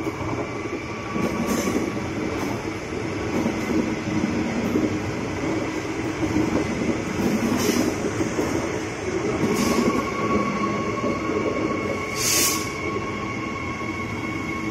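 Queensland Rail electric multiple-unit train running slowly past the platform: a steady rumble with a thin, high, steady wheel squeal over it and scattered clicks of the wheels over the rail joints and points. A short hiss comes about twelve seconds in.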